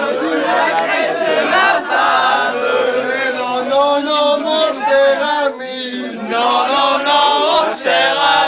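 A group of people, men's voices leading, singing a song together without instruments, with a short break between lines a little past halfway.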